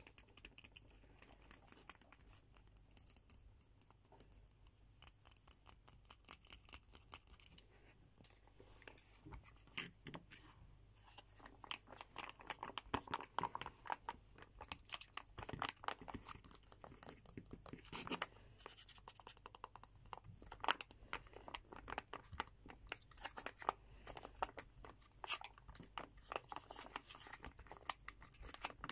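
Close-up crinkling and crackling of a plastic fruit purée squeeze pouch with a foil back, squeezed and rubbed by fingers. This comes after several quieter seconds of faint clicks and scratches from handling plastic pens.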